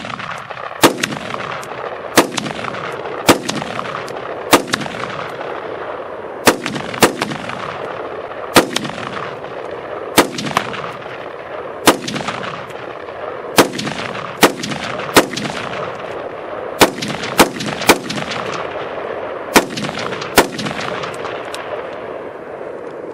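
AR-15 rifle firing .223 Remington steel-case ammunition in semi-automatic: about eighteen single shots at an uneven pace, each followed by a long echo. It cycles the ammunition without a stoppage through the string.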